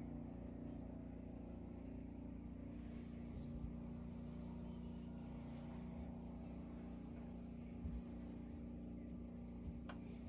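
An engine running steadily at one unchanging low pitch, with a few faint clicks near the end.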